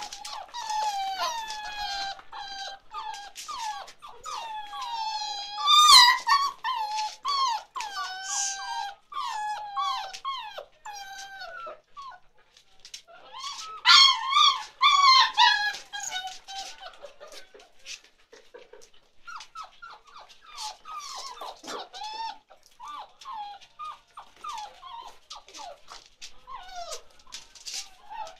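Chocolate Labrador puppies about seven weeks old whining and yelping, high-pitched cries coming one after another. They are loudest about six seconds in and again around fourteen to sixteen seconds in.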